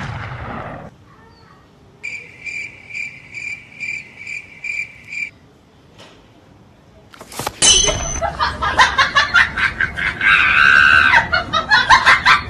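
Cricket-chirp sound effect, an even run of high chirps about two and a half a second, marking an awkward silence; it opens on the fading tail of a loud bang, and from about halfway a loud, busy jumble of rapid sound takes over.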